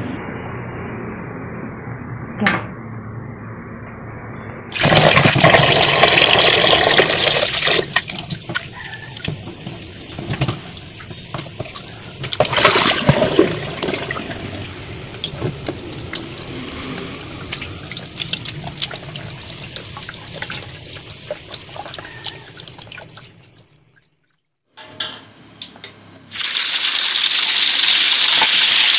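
A pot of eggs at a rolling boil, then a tap running into a steel sink while boiled eggs are rinsed and peeled under it, with uneven splashing and handling. Near the end, a steady sizzle as peeled boiled eggs fry in oil in a wok.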